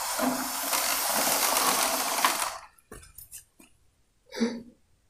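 Plastic wheels of a toy horse trailer rolling across carpet as it is pushed away: a steady rushing noise for about two and a half seconds that stops abruptly, followed by a few light clicks as toy figures are handled.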